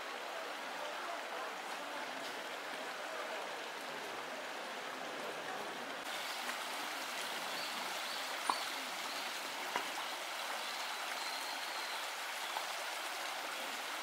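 Shallow stream rushing and burbling over rocks in a steady wash of water noise, a little louder and brighter after about six seconds. A couple of faint clicks about halfway through.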